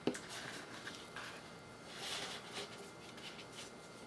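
Faint rustling and scraping of a doubled three-strand laid rope being crossed and looped by hand, with a light click right at the start.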